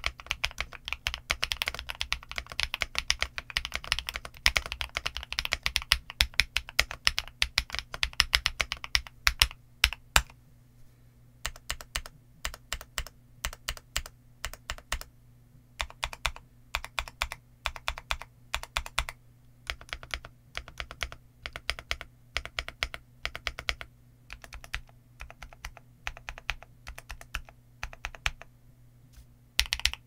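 Boyi GMK67-S mechanical keyboard with Zuoce Bubble Gum linear switches and JTK404 doubleshot ABS Cherry-profile keycaps being typed on. Fast, dense typing runs for about ten seconds, then gives way to slower, separate keystrokes in short groups.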